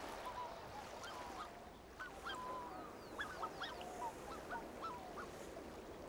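Waterfowl calling: a quick series of short calls, several rising in pitch, over a faint steady hiss.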